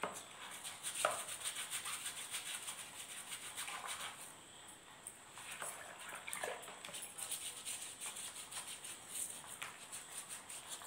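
Bristle brush scrubbing the skin of a foot with quick, repeated strokes.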